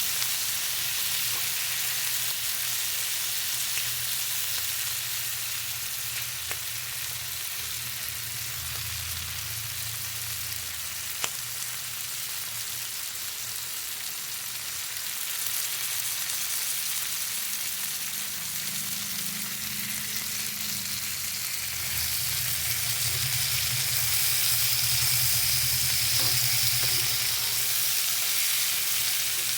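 Food frying in hot oil: a steady sizzle with an occasional crackle, growing louder about two-thirds of the way through, over a low hum.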